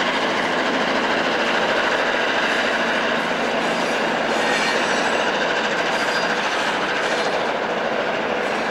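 Diesel freight train passing: the locomotive's engine and the wheels rolling on the rails make a steady, loud running sound.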